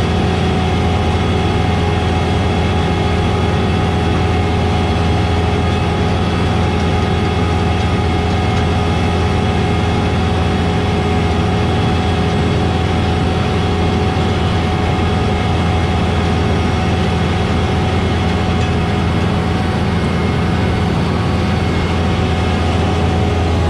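Heavy diesel farm machinery running steadily under load: a constant low engine drone with a steady mechanical whine above it.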